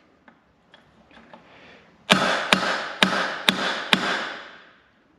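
Hammer striking a punch to drive a stuck Bristol Hercules reduction gear out of its case. A few faint taps, then from about two seconds in five sharp metal blows roughly half a second apart, ringing after each.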